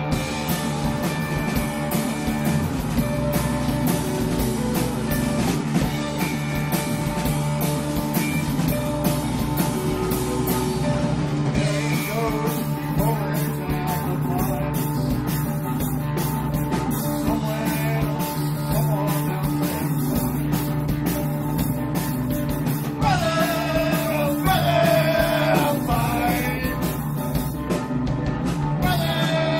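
Live rock band playing electric guitars and drums. The cymbals and drums are busy for the first ten seconds or so, then thin out, and a man sings into the microphone over the band near the end.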